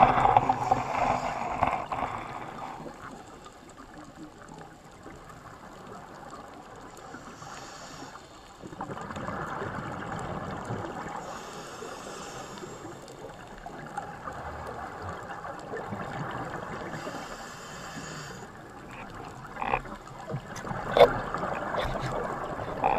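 Muffled underwater rushing picked up by a diver's camera housing. A high hiss comes every four to five seconds, like a scuba diver's exhaled bubbles, and a few sharp clicks sound near the end.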